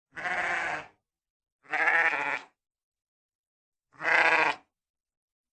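Sheep bleating three times, each call under a second long with a wavering pitch, about two seconds apart.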